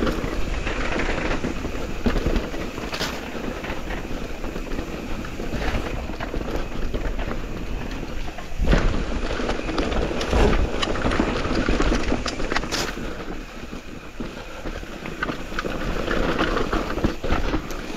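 Mountain e-bike riding a trail: a steady rushing of tyres on dirt and air past the microphone, with sharp knocks and rattles as the bike hits bumps, several of them across the stretch.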